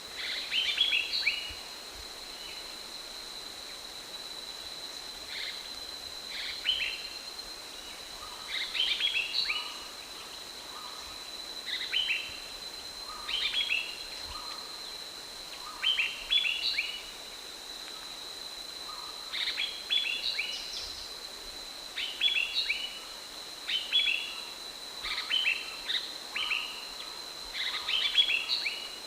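Ashy bulbul (Hemixos flavala) calling: repeated short phrases of quick descending notes, a couple of seconds apart, over a steady high-pitched tone.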